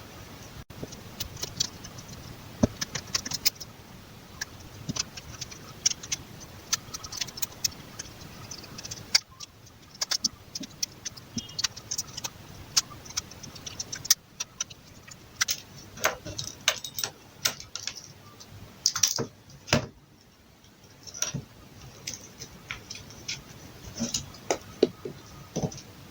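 Irregular small clicks, ticks and taps of small metal repair tools working on an iPhone X's frame and logic board as the motherboard is unscrewed and lifted out. The clicks come in uneven clusters, with a brief lull about twenty seconds in.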